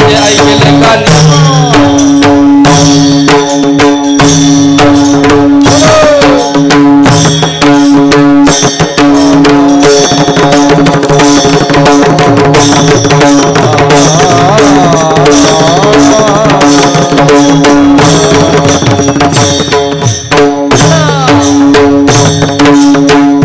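Marathi abhang devotional music without words: a hand drum keeps up a fast, continuous rhythm with ringing cymbal strokes over a steady held drone note, while a melody line weaves above it.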